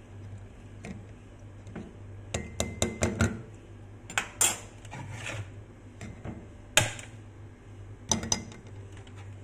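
Metal spoon scraping and clicking against a stainless mesh strainer and the ceramic mug it sits on, pressing blended pulp to squeeze out the juice. The clicks come in clusters, with the loudest single knock a little before seven seconds in and a pair of knocks near the end, over a low steady hum.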